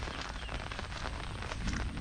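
Heavy monsoon rain falling: a dense, steady hiss made of many small, sharp drop impacts.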